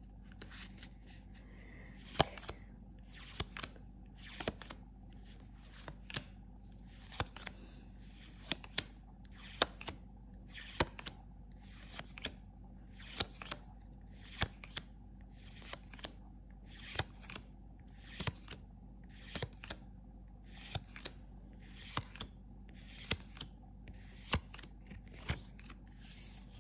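Trading cards being flipped through one at a time, each card slid off the stack with a short, sharp snap, about one a second.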